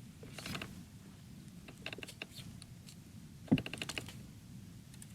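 Short bursts of rapid clicking from a fishing reel while a big hooked bass is being fought. A sharp knock comes a little past halfway, at the start of the longest run of clicks.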